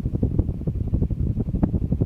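52-inch Litex ceiling fan running, its blade airflow buffeting the microphone with a loud, uneven low rumble of wind noise.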